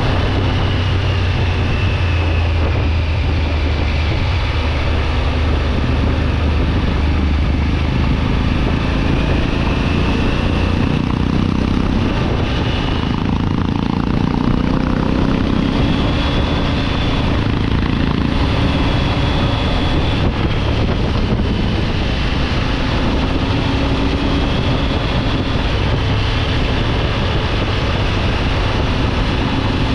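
Triumph Tiger 900 GT Pro's three-cylinder engine running while the motorcycle is ridden. The engine note shifts higher about a third of the way in as speed changes.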